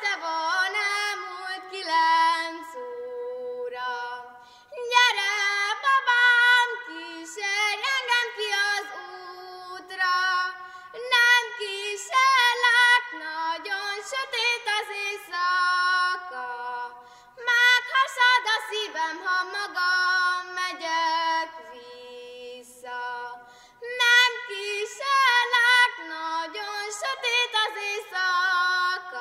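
A young girl singing solo and unaccompanied, in long sustained phrases with vibrato and short pauses for breath between them.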